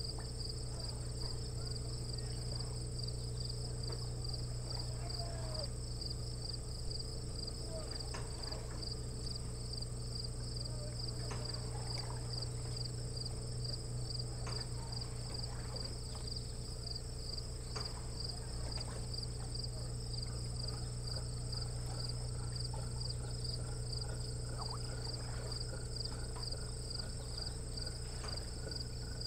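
Steady chorus of insects, a high pulsing trill, over a low steady hum, with a few faint short chirps and ticks now and then.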